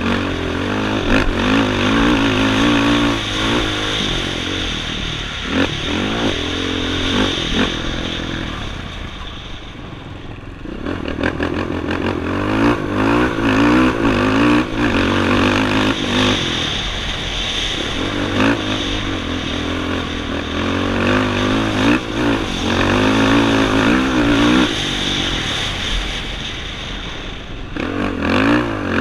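The engine of an off-road racing machine, heard from its own onboard camera, revving up and down again and again as it is ridden hard over a dirt track. It eases off briefly about nine seconds in and again near the end.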